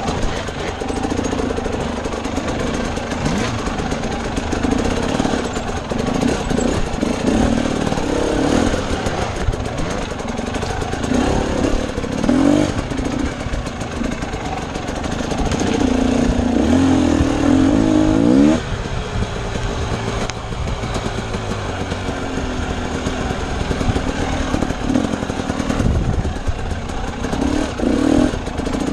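Husqvarna TE250 dirt bike engine working at low speed up a rocky trail, its revs rising and falling with the throttle. About two-thirds through, the revs climb for a couple of seconds and then drop off suddenly.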